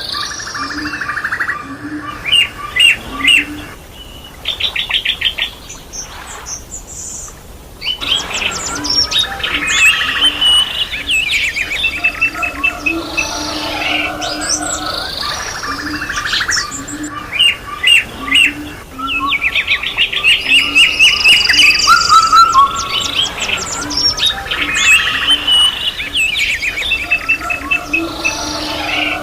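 Several songbirds singing together, a busy mix of chirps, whistled glides and rapid trills, with a quieter lull a few seconds in.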